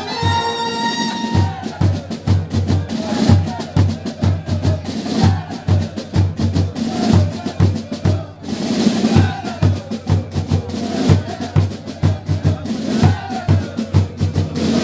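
Carnival band's drums, snare drums with a bass drum, playing a steady marching beat for the Gilles' dance. The brass tune stops about a second in, leaving the drums alone.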